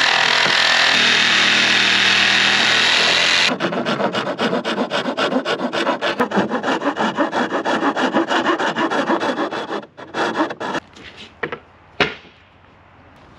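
Electric jigsaw running as it cuts through a wooden board, stopping abruptly about a third of the way in. It gives way to a handsaw sawing the board with rapid back-and-forth strokes, then a sharp wooden knock of a board set down on a plank deck near the end.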